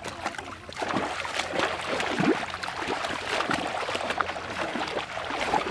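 Water splashing and sloshing as people wade and work through shallow water, many small irregular splashes that grow louder about a second in.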